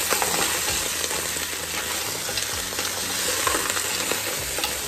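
Crabs sizzling in a stainless steel pot as they are stirred with a utensil, a steady hiss with scattered clicks of shells and utensil knocking against the pot.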